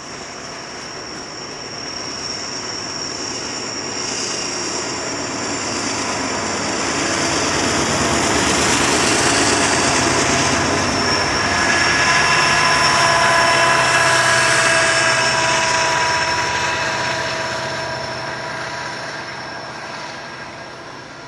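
A diesel freight train passing. Its rumble builds to its loudest in the middle and then fades away, with steady whining tones over the loudest part.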